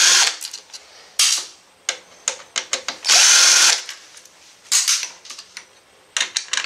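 Cordless electric screwdriver whirring in four short bursts, the longest about three seconds in, as it backs out the screws holding the drive motors to a laser printer's metal side plate. Sharp clicks and taps come between the bursts.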